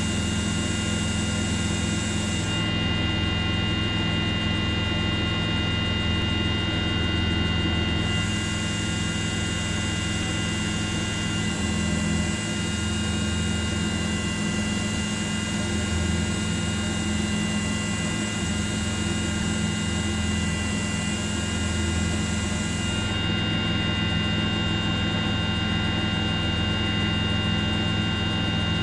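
Steady drone and whine of a helicopter's engine and rotor, with several constant high tones. A high hiss drops away a few seconds in, comes back, and drops again near the end.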